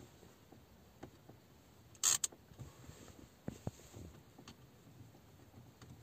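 Plastic air-vent smartphone holder handled with a phone in it: a few soft clicks and one short, sharp plastic rattle about two seconds in as the holder is turned.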